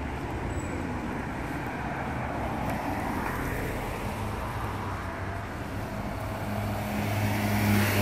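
Road traffic: a steady hiss of passing cars, with a vehicle's engine hum building up and growing louder in the last couple of seconds as it passes close.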